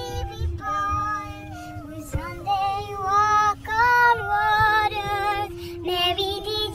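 High-pitched female singing: a tune of held, evenly pitched notes that step from one to the next, with a steady lower tone beneath.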